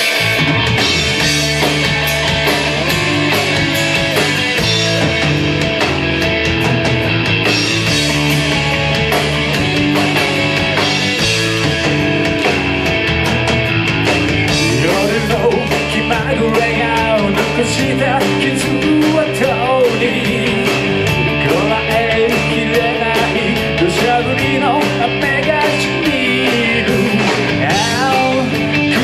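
A rock band playing live at full volume: electric guitar and drums, with a wavering lead melody coming in over the band about halfway through.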